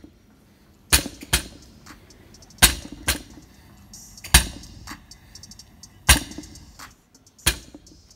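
A 185 lb barbell with bumper plates is set down hard on a rubber mat between deadlift reps. There are five sharp thuds about every second and a half, most followed quickly by a lighter knock as the plates rebound.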